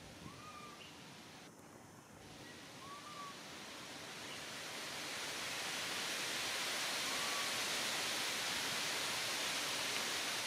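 Outdoor background hiss that swells over the first few seconds and then holds steady, with a few faint, short whistled calls.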